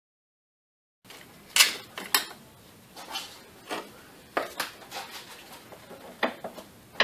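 Scattered metallic clinks and taps of hand tools and bolts against engine parts as fasteners are undone in a car's engine bay. They are irregular single knocks, not a ratchet's steady clicking, and begin after about a second of silence.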